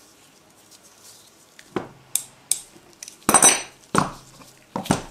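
Hard parts and tools clinking and clattering as they are handled and set down on a workbench during assembly of an extruder: quiet at first, then about half a dozen sharp knocks, the loudest about three seconds in.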